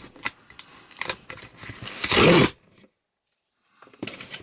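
Cardboard box being opened with scissors: clicks and scrapes, then a loud rasp of tape or cardboard about two seconds in, followed by about a second of dead silence.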